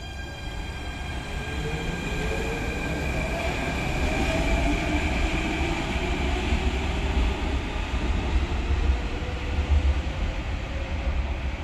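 Athens Metro second-generation electric train pulling out of an underground station. Its traction motor whine rises in pitch as it accelerates over a low rumble of wheels on rail, growing louder.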